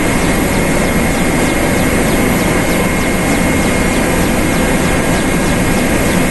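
Helicopter engine and rotor noise inside the cockpit in flight: loud and steady, with a high, steady whine running through it.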